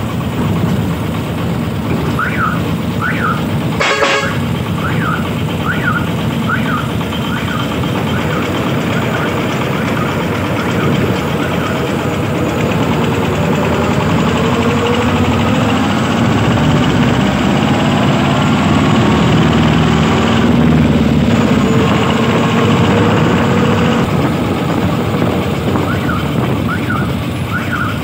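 Công nông farm truck's diesel engine running steadily while driving, loud through an exhaust pipe that is holed with its inner baffle broken. A series of short high chirps sounds over it in the first few seconds and again near the end.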